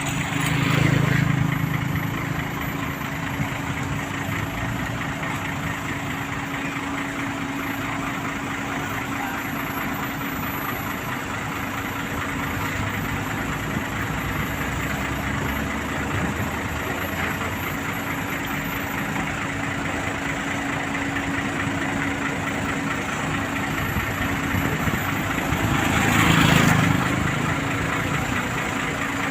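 Diesel engines of asphalt-paving machinery running steadily with a continuous hum, swelling louder about a second in and again near the end.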